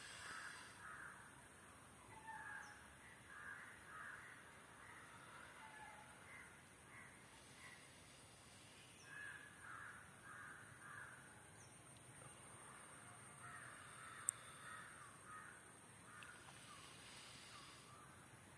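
Faint crows cawing in several short runs of calls over near silence, with one brief sharp click.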